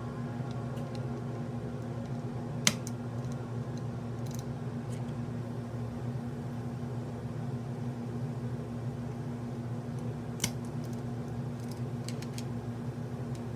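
A few sharp plastic clicks over a steady low hum, typical of mechanical keyboard switches being pressed into a hot-swap board; one loud click about a quarter of the way in and another later on.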